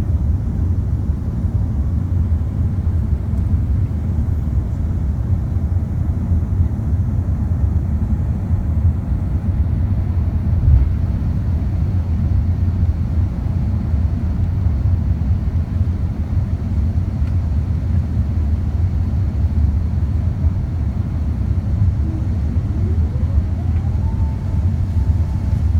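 Steady low rumble of engines and airflow inside the cabin of an Airbus A380-800 on approach. Near the end a whine rises in pitch, holds and then falls.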